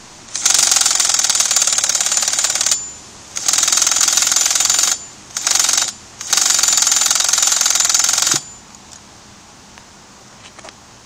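Starter cranking the HPI Savage 25's K4.6 nitro engine in four buzzing bursts, the last one short. The engine turns over but does not fire: a nitro engine that won't start.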